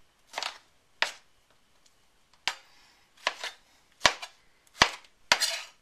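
Chef's knife chopping Roma tomatoes on a plastic cutting board: about eight sharp knocks of the blade striking the board, at an uneven pace with short pauses between.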